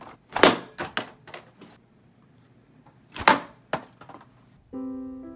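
A carded action figure in a plastic blister pack thrown hard onto a carpeted floor: a few sharp thunks and plastic clatters in two clusters. Near the end a held keyboard chord comes in.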